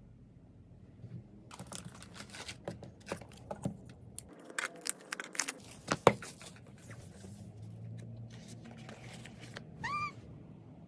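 Packaging being handled and opened by hand: irregular crinkling, tearing and clicking, with one sharp click near the middle. Shortly before the end comes a brief rising-then-falling squeak-like tone.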